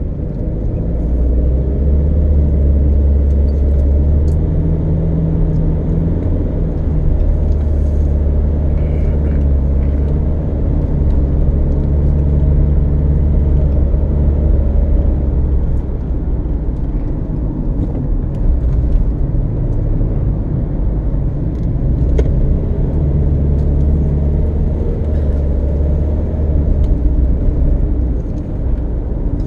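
Car engine and tyre noise while driving: a continuous low drone that grows and eases in strength.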